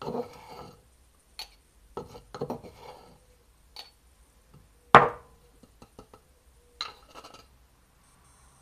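A metal spoon scraping and clinking against a wooden mortar and the rim of a small glass jar as dried herbs are spooned into the jar: a series of short scrapes and taps, with one sharp knock about five seconds in.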